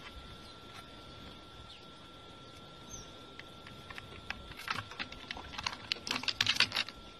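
Faint scratching and clicking of a koala's claws gripping and climbing on a bark-covered branch. The scratches come thicker and louder in the second half.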